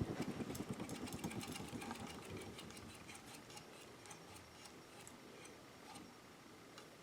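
1989 Hunter Reversaire ceiling fan coasting down after being switched off. Its hum fades steadily, with light ticking that slows and thins out as the fan loses speed.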